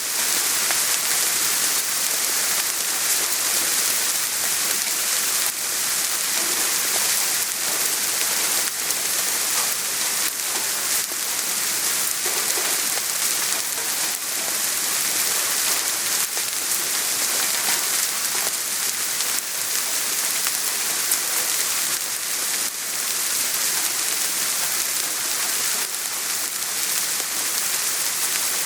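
Steady rain falling on a surface: an even hiss with many small drop ticks.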